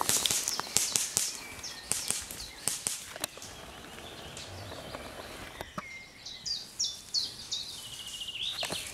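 Irregular crunching footsteps on the dry forest floor, snapping twigs and leaf litter, for the first few seconds. Then, in the quieter second half, a songbird sings a run of short high chirps and stepped whistled notes.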